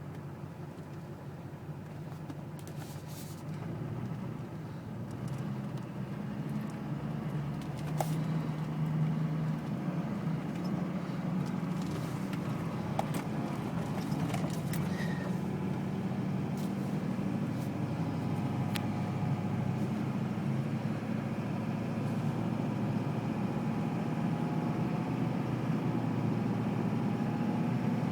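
Duramax LLY 6.6-litre V8 turbodiesel idling with a steady low drone that grows gradually louder. This is the rough idle with diesel fuel knock that the owner reports alongside white smoke. A few sharp clicks sound over it.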